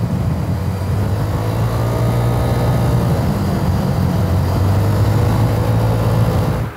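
Italjet Dragster 125 cc scooter running at motorway speed: a steady engine drone with wind and road noise, its pitch drifting slightly up and down.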